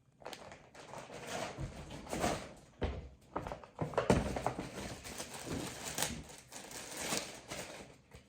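Products and their packaging being handled: irregular rustling and clicks, with dull thumps about three and four seconds in as things are put down.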